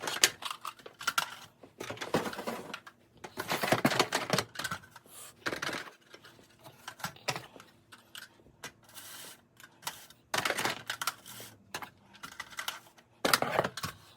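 Packaging being handled and torn open to take out Simplex TrueAlert fire alarm devices: irregular bursts of rustling and crinkling, with scattered clicks and knocks between quieter gaps.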